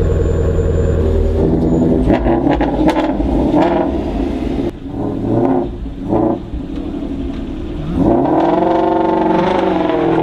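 Ford Shelby GT350 Mustang's V8 running as the car pulls away, rising in pitch as it accelerates about eight seconds in.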